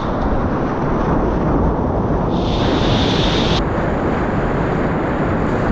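Rushing river whitewater with wind buffeting the microphone, a loud steady rush. A brighter high hiss joins for about a second, a little over two seconds in.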